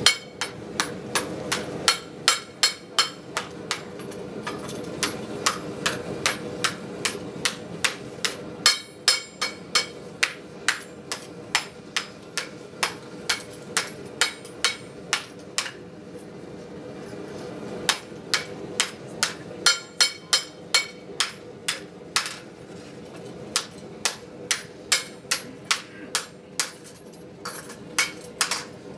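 Blacksmith's hand hammer striking a red-hot steel frying-pan blank held in tongs on a round block, shaping it. The blows come about two to three a second in runs with short pauses, over a steady hum.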